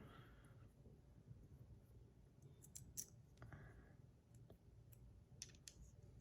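Faint, scattered clicks of small metal parts being handled as buttons are fitted onto a stainless steel bar spinner fidget toy.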